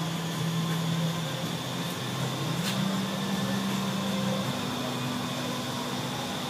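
Indoor skydiving wind tunnel running, a steady rush of air from its fans. A low hum under it steps up in pitch twice. There is a single click about two and a half seconds in.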